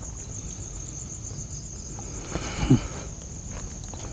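Night insects, crickets, trilling steadily in a high, evenly pulsing chorus. A brief scuff or thump comes just past halfway and is the loudest sound.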